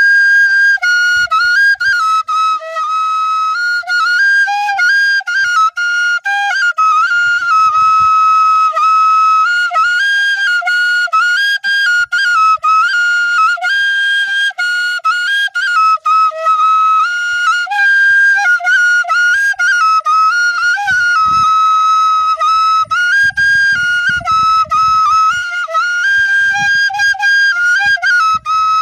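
Bansuri (bamboo flute) playing a continuous melody. The tune steps back and forth between a few high notes, with a fainter lower line following beneath it.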